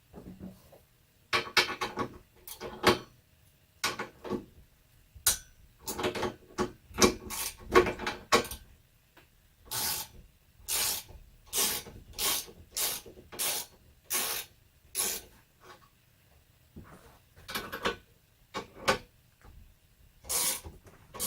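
Hand work on a chainsaw at a workbench: a long series of short scraping, rasping strokes, irregular at first and then coming evenly, a little more than one a second, through the middle of the stretch.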